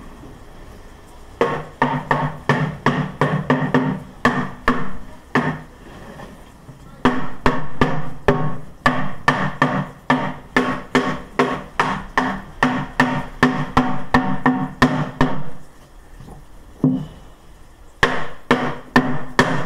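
Cloth-covered rubber mallet tapping the panels of a flat-pack beehive body together, in runs of about three taps a second with short pauses between. Each tap sets the hollow box ringing briefly.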